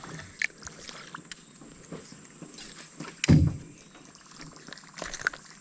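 Sounds of a just-landed bass being handled in a jon boat: faint water splashes and a few sharp clicks, with one loud, deep thump on the boat about three seconds in.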